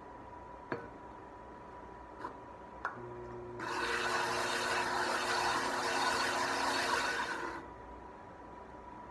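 The bottom of a ceramic pot ground against a wet diamond pad on a spinning pottery wheel: a loud, even rasping that lasts about four seconds and then stops, over a steady hum. A few light knocks come before it.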